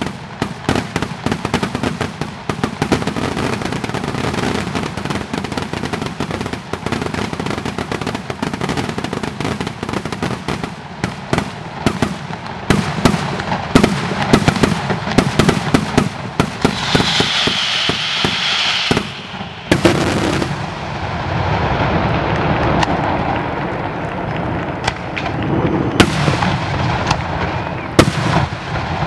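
Fireworks display at its climax: a dense, rapid barrage of bangs and crackles. About two-thirds of the way in the barrage breaks off, and a steadier rumble follows with a few loud single bangs.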